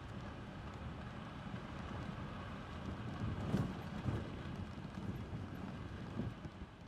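Wind buffeting the microphone as a steady low rumble, with two louder thumps about three and a half and four seconds in.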